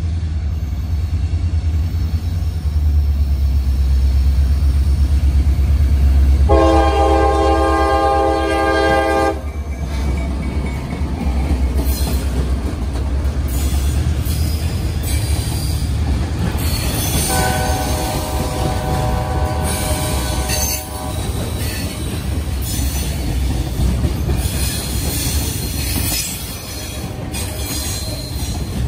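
CSX GP38-2 locomotives, EMD 645 diesels, rumbling past close by, their air horn sounding two long blasts about seven and seventeen seconds in. After that the trailing freight cars' wheels clatter and squeal on the rails.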